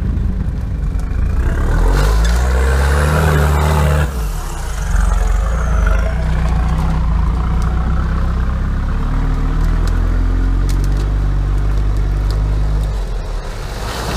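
Jeep Cherokee's engine revving hard as it pushes through deep mud. The revs dip briefly about four seconds in, climb again, and ease off near the end.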